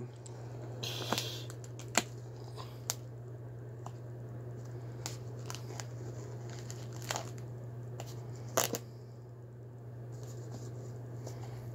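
Cellophane-wrapped fireworks assortment box being handled: scattered faint crinkles, taps and rustles, with a sharper crackle about eight and a half seconds in, over a steady low hum.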